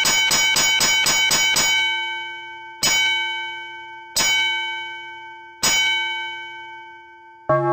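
Ship's bell rung rapidly, the run ending about two seconds in, followed by three separate strokes about a second and a half apart, each left to ring out: the sound signal of a vessel aground. Right at the end a different, lower-pitched metallic ringing starts.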